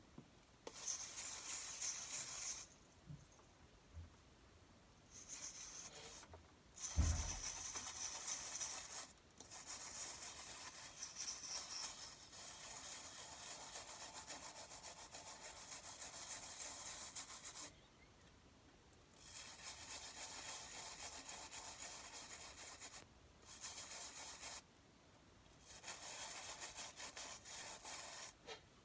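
Toothbrush bristles scrubbing a water turtle's wet shell: scratchy brushing in spells of a few seconds with short pauses between them, and a single low thump about seven seconds in.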